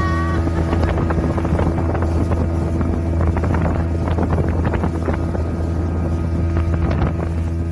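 Speedboat's outboard motor running at steady cruising speed, a low drone, with irregular splashing of water against the moving hull and wind buffeting the microphone.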